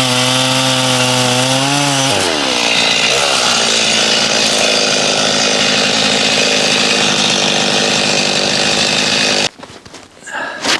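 Stihl gas chainsaw running steadily, then about two seconds in its pitch drops as the chain bites into wood and it cuts under load for several seconds. The saw stops suddenly near the end.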